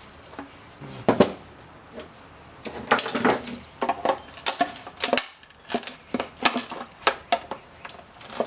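Irregular clicks, taps and clatter of small plastic and metal parts and hand tools as switches are worked out of an electric scooter's housing.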